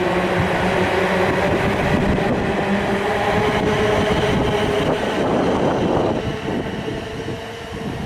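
Class 444 electric multiple unit pulling out of the station: its traction motors give a steady hum with several held tones over the rumble of the wheels on the rails. The sound fades over the last couple of seconds as the train moves away.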